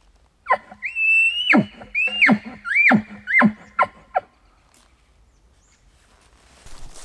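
Bull elk bugling: one long whistle that climbs to a high held note and breaks down into a low growl, followed by a run of about five shorter chuckles, each sliding from a squeal down to a grunt.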